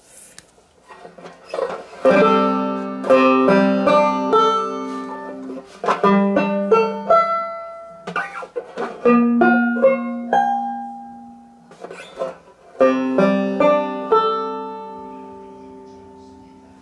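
Vintage banjo strummed and picked in short phrases of chords, each phrase ringing and dying away before the next, played as a sound test of the instrument.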